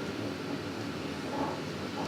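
Old train running with a steady, even rumble from its carriage and wheels on the rails.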